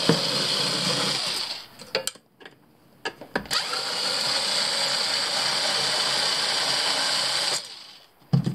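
Cordless electric screwdriver running in two spells as it drives out the screws of a car ECU's aluminium case: about a second and a half at the start, then about four seconds from the middle. A few light clicks fall between the runs.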